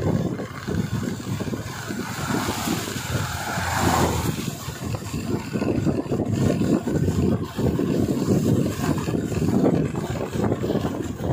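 Wind buffeting the microphone over engine and road noise from a vehicle moving along a paved road. An oncoming car passes about three to four seconds in.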